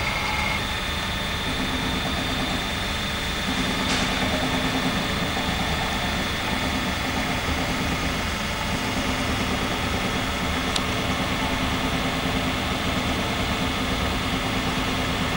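Diesel engine of a demolition machine running steadily, its low note shifting slightly a few times as the load changes. Two faint sharp ticks, about four seconds in and about eleven seconds in.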